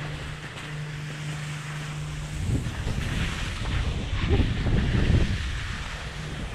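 Skis scraping and hissing through heavy snow on a steep run, with wind buffeting the microphone; this gets louder from about two and a half seconds in. Before that a steady low hum.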